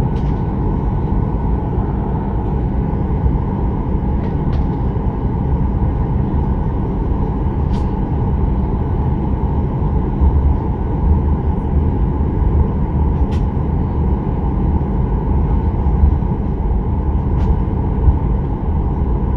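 Steady cabin noise of a Boeing 737-800 taxiing: the hum of its CFM56-7B jet engine at idle over a deep, even rumble, with a few faint short clicks.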